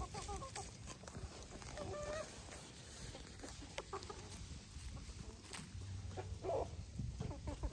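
Backyard chickens clucking: a few short calls, a longer drawn-out call about two seconds in, and the loudest clucks near the end.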